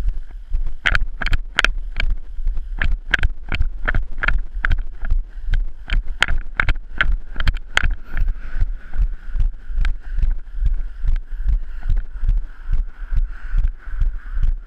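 Walking footsteps, about two to three a second, heard as regular knocks through a body-worn camera, over heavy wind buffeting the microphone. A lorry passes on the road about eight seconds in.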